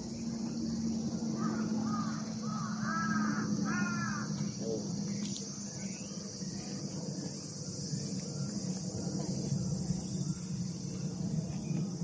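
A steady, high-pitched insect chorus, with a crow cawing several times in quick succession about two to four seconds in.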